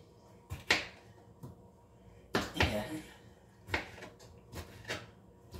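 A paring knife knocking on a cutting board while tomatoes are diced, about seven sharp, irregular knocks roughly a second apart.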